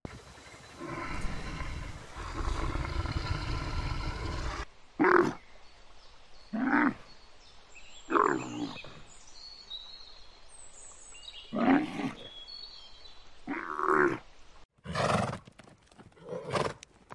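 A bear growling low and rough for about four seconds, followed by a series of short, loud, hoarse animal calls one to two seconds apart.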